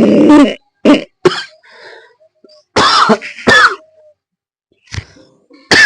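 A harsh, rasping throat sound at the start, then a series of short coughs and throat-clearing: two quick ones about a second in, two more around the middle and one near the end. This is the coughing that breathing in through a tightened throat in ujjayi pranayama brings on at first, from strain and friction in the throat.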